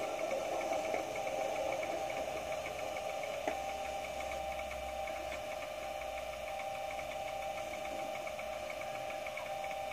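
Recorded Class 37 diesel engine sound (English Electric V12) idling steadily through the DCC sound decoder's loudspeaker in an O gauge model locomotive, with a faint regular ticking. About three and a half seconds in there is a small click and the engine tone shifts slightly.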